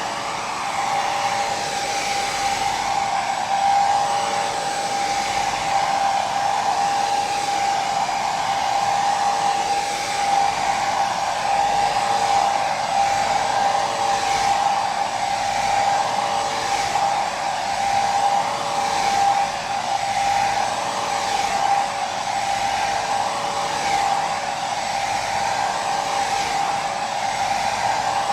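Hair dryer running continuously, a steady rushing blow with a high motor whine that swells and eases slightly every couple of seconds.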